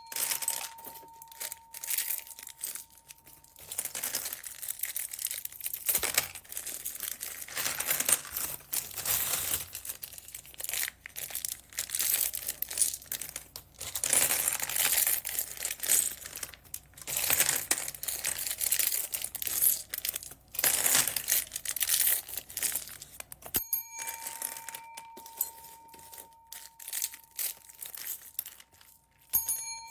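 Plastic packaging bags crinkling and rustling as they are handled, in dense irregular bursts with sharp crackles.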